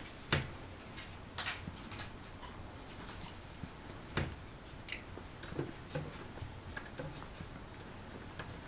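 A litter of four-week-old golden retriever puppies scrambling and play-fighting: irregular clicks and scratches of small claws and paws on the floor, with soft scuffling.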